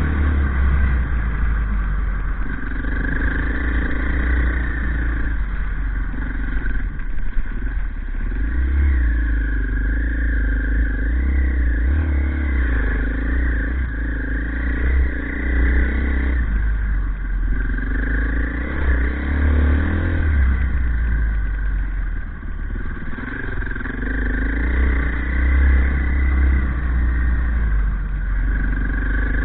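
Off-road motorcycle engine running under way, its revs rising and falling every few seconds with the throttle, over a heavy, steady low rumble.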